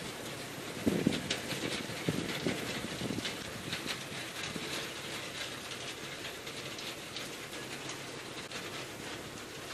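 Massey Ferguson 275 tractor working the field with its implement: a steady running noise with a continuous clatter and rattle, and a few low thuds in the first three seconds.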